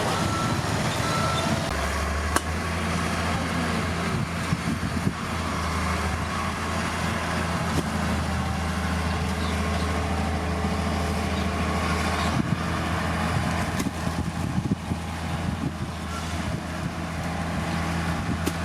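Diesel engine of heavy earthmoving machinery running steadily, its low drone growing louder about two seconds in, with a few sharp knocks.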